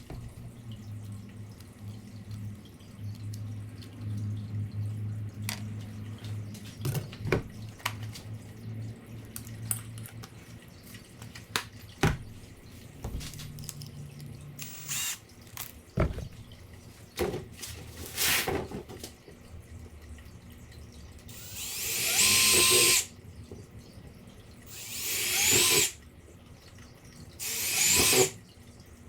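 Handheld power drill boring into plastic in three short runs, each a couple of seconds long with a whine that rises as the motor spins up, in the last third. Scattered clicks and handling knocks come before them.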